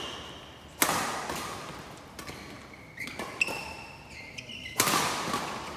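Badminton rally: racket strings smacking a shuttlecock about a second in, at three seconds and near five seconds, each hit echoing in a large hall, with short high squeaks of court shoes on the floor between the hits.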